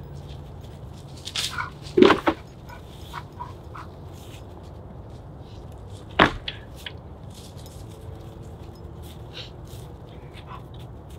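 Log rounds being set down on a woodpile: a few sharp wooden knocks, the loudest about two seconds in and another about six seconds in, with light rustling and clicks in between.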